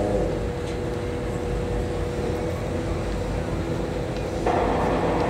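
Fire engines' diesel engines running steadily to drive their pumps, a low rumble with faint steady tones. About four and a half seconds in the sound jumps to a louder, noisier rumble.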